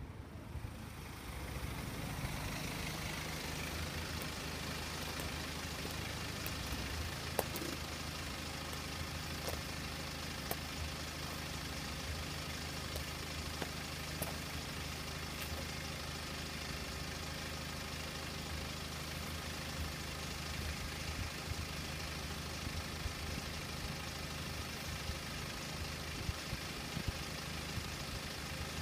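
A vehicle engine idling steadily, coming in about a second and a half in, with a few faint clicks over it.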